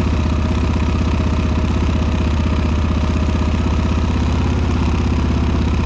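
Bultmotors Jumbo 700 ATV engine idling steadily at a raised cold idle while it warms up.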